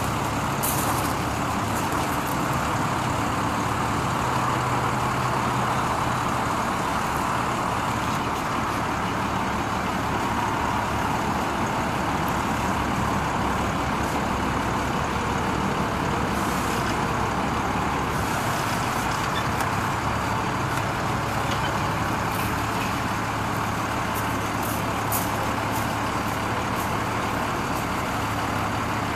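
Ford F800's Cummins 5.9-litre diesel engine running steadily with a low hum, driving the hydraulic hoist as the chipper dump body tilts up.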